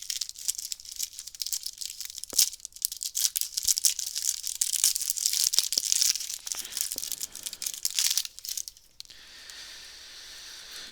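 A trading card booster pack wrapper being torn open and crinkled by hand, a dense crackling for about eight seconds that then dies down to a faint hiss.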